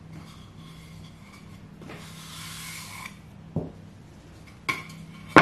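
A cove-cut wooden moulding being handled: rubbing and rustling as it is turned in the hands, then a few sharp knocks of the wood against the tabletop in the second half, the loudest at the very end.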